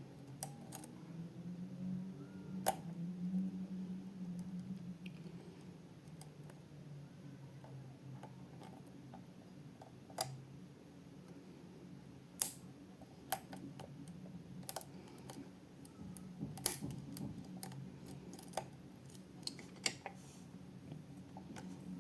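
Metal lock picks clicking and tapping in small, irregular, sharp clicks over a steady low hum.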